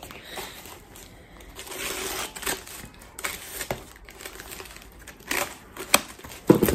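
Packaging rustling and crinkling as the next book is unwrapped and handled, with scattered sharp crackles and taps, the loudest near the end.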